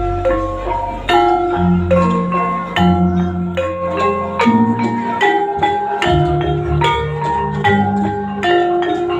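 Gamelan-style music: struck metal-bar keys playing a busy, rhythmic melody over low sustained tones, as accompanies a Kuda Lumping dance.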